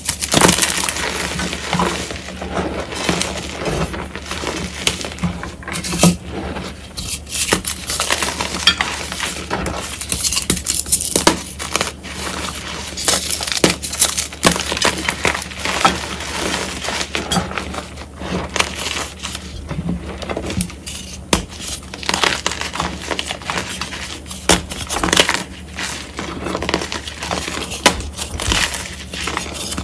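Reformed gym chalk crushed and crumbled by hand: an unbroken run of crisp, crunchy cracks and snaps as chalk pieces break, with softer crumbling of chalk powder between them.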